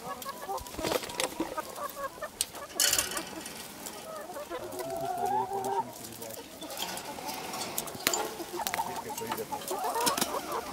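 Free-range hens clucking and calling in wavering, mid-pitched notes, with a few short bursts of noise.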